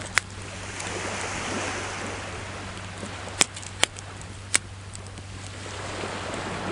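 Wood fire crackling with a few sharp pops over ocean waves washing on the shore, the surf rising and falling twice.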